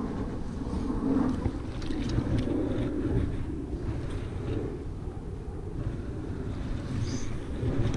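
Low, shifting rumble of wind and fabric rubbing over a body-worn camera's microphone, with a few faint handling knocks.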